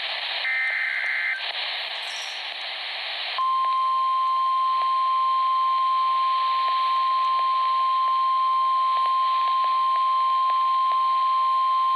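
NOAA Weather Radio emergency alert over steady radio hiss: a one-second burst of SAME digital header data, then about two seconds later the 1050 Hz weather radio warning alarm tone, a single steady tone held for about nine seconds. It is the signal that a warning broadcast, here a tornado warning, is about to follow.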